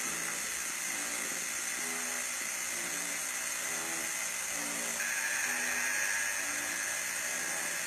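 Background music: a slow, low melody of short separate notes, under a steady hiss from the old recording.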